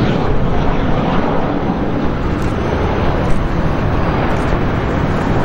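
Boeing 737 BBJ's twin jet engines: a steady, loud rushing noise as the jet flares and touches down on the runway.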